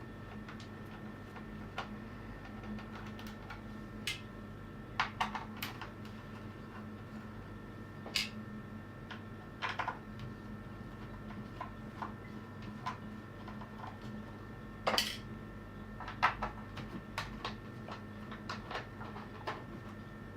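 Small screws being unscrewed from an Amiga 500 keyboard's plastic frame with a screwdriver: irregular light clicks and small metallic clinks of the tool and screws, over a faint steady hum.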